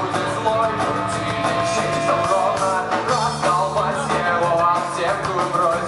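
Rock band playing live: an instrumental passage of guitars over a driving drum beat, with no sung lyrics.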